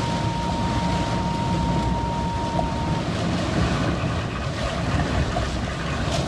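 A car driving through standing water in heavy rain: a steady wash of tyre splash and road noise, heard from inside the cabin. A thin, steady high tone sounds for about the first half and then stops.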